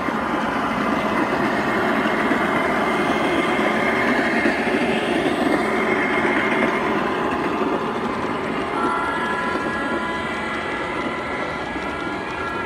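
G scale model train, a diesel locomotive pulling tank cars, running past on the track: a steady rolling and motor noise, with a high tone coming and going from about nine seconds in.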